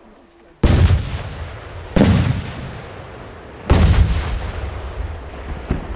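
160 mm Italian cylinder shell firework breaking in the air: three heavy bangs, one to two seconds apart, each followed by a long rolling echo that dies away.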